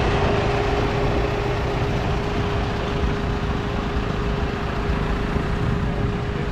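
Mitsubishi Pajero off-roader's engine running steadily with a rough low rumble and a constant whine held over it.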